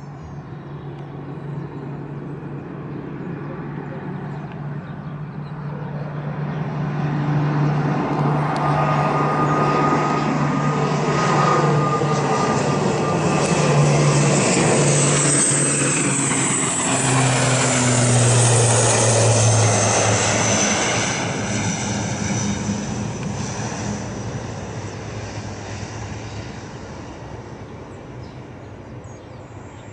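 ATR 72-600 turboprop airliner at takeoff power, its twin Pratt & Whitney PW127 engines and six-bladed propellers droning. The drone builds during the takeoff roll, is loudest as the plane climbs past with the pitch dropping as it goes by, and fades as it climbs away.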